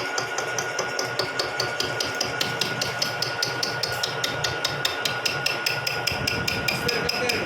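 Vertical milling machine cutting spur gear teeth: a rapid, even ticking, several strikes a second, over a steady whine.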